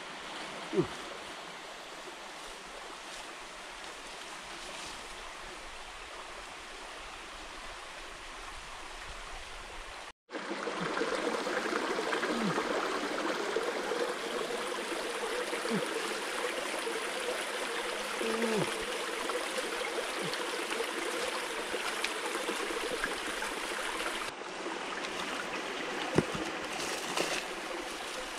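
Small forest stream flowing, a steady rush of water that cuts out for a moment about ten seconds in and comes back louder. A few brief falling whistles sound over it, the loudest near the start.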